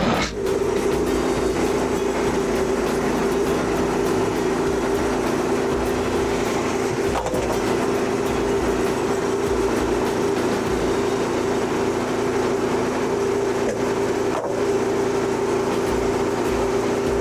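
A steady mechanical hum from a running motor, holding one even pitch throughout.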